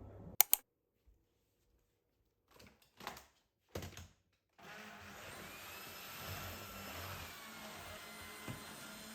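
Two sharp clicks, a few short knocks, then a household electric appliance motor starts and runs steadily with a low hum.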